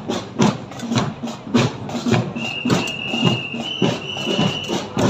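A drum beaten at a steady marching pace, about two beats a second. In the second half a high steady tone is held twice, briefly broken.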